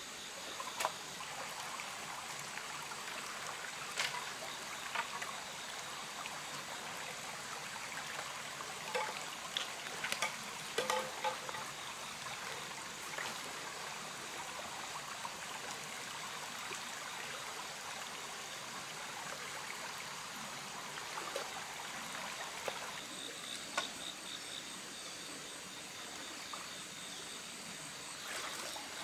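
Shallow rocky stream running and trickling over stones, with a few short sharp knocks and clicks scattered through the first half. Insects start a steady high chirping about three-quarters of the way through.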